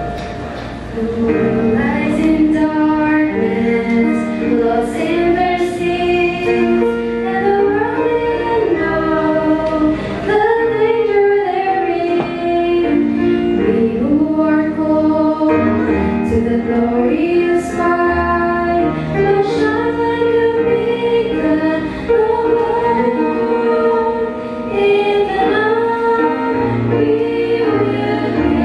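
Young women's vocal group singing a gospel song into microphones, with a musical backing.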